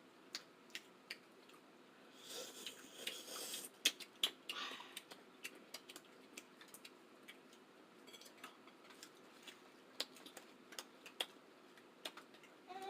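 Close-miked eating sounds: scattered wet mouth clicks and smacks while chewing seafood, with a brief rush of noise about two seconds in.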